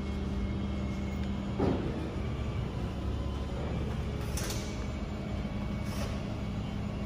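Steady low hum of an idling vehicle engine, with a brief thump a little under two seconds in and two faint clicks later.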